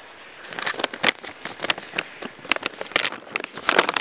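Plastic dog-treat pouch crinkling as it is handled to get a treat out, a dense run of irregular crackles.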